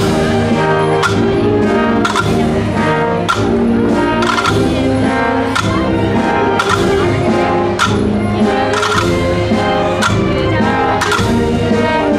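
A marching band with brass plays a slow processional march, with a drum or cymbal beat struck about once a second.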